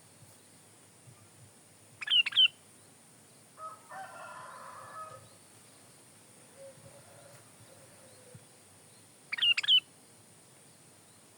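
Sooty-headed bulbul (kutilang) giving two short, loud, liquid song phrases about seven seconds apart. A fainter, lower call comes between them.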